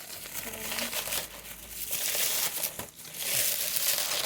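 Packaging crinkling and rustling as a boxed toy figure is handled and unwrapped, in two long stretches with a brief lull about two seconds in.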